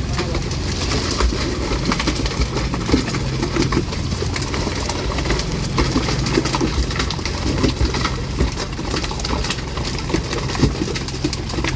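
Fishing boat's engine running steadily at idle, with scattered short knocks and clatter on top.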